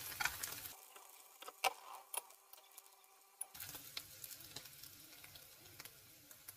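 Oyster mushroom slices sizzling in butter in a nonstick frying pan, with sharp clicks of metal tongs turning them. The sizzle is densest in the first second, then drops to a faint crackle, with a few tong clicks about two seconds in.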